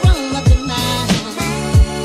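Background music: sustained chords with a melody that slides in pitch, over deep bass-drum hits that drop in pitch, three of them in two seconds.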